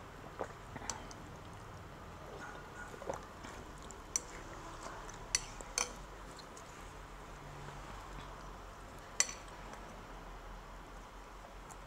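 Chopsticks and a spoon clinking against a ceramic bowl now and then as instant noodles are stirred and lifted. There are about seven sharp separate clicks, the loudest about nine seconds in.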